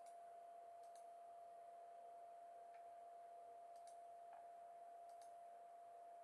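Near silence: room tone with a faint steady tone throughout and a few faint, scattered ticks.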